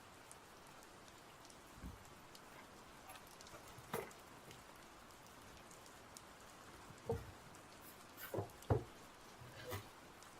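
Scattered clicks and knocks from packaging and cooler parts being handled during an unboxing, over a steady low hiss.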